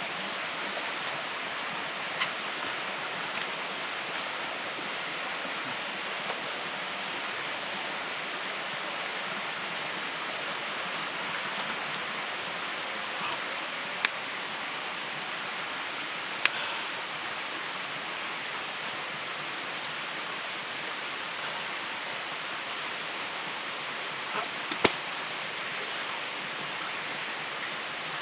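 Steady rushing noise like flowing water, with a few sharp clicks breaking through, the loudest a few seconds before the end.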